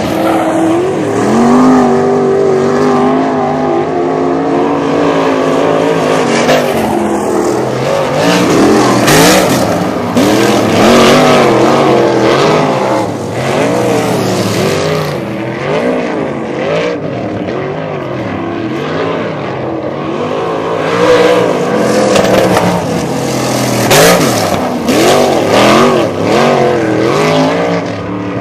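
Sprint car engines running laps in practice, their pitch rising and falling over and over as the drivers get off and back on the throttle through the turns, with several engines overlapping.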